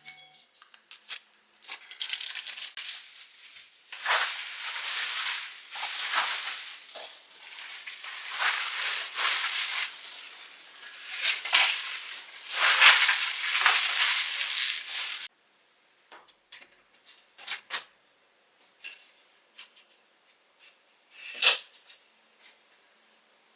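Household objects being handled: about thirteen seconds of scraping, rustling noise that cuts off suddenly, then scattered light clicks and taps.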